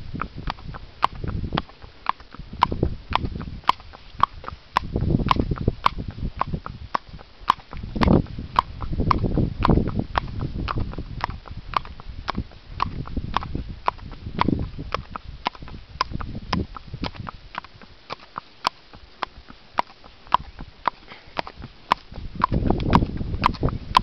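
Haflinger pony's hooves clip-clopping on a concrete path, a steady beat of sharp clicks about three a second, with occasional low rumbles.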